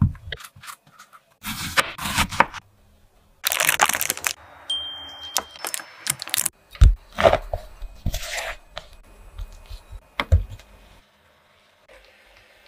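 A run of short kitchen food-prep sounds: a knife cutting through a strawberry on a wooden cutting board, then a knife pressing through a block of butter as its foil wrapper crinkles. The sounds are separate sudden strokes and rustles with short pauses between them.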